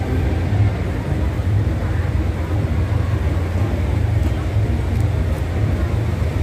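Steady low rumble of road traffic, vehicle engines running as they creep along the street.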